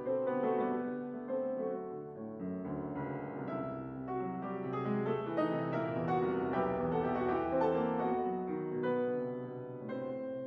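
Concert grand piano played solo: a continuous passage of many quickly struck notes over held chords, rising and falling a little in loudness.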